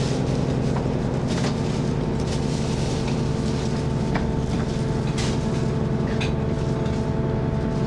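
Diesel railcar's engine running steadily, heard from inside the carriage as the train rolls slowly through a station, with a steady hum and a few light clicks and knocks from the running gear.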